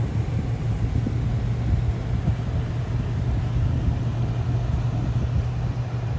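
Motor yacht engines running with a low, steady rumble under a faint hiss, as the yacht manoeuvres at low speed and churns up its wake.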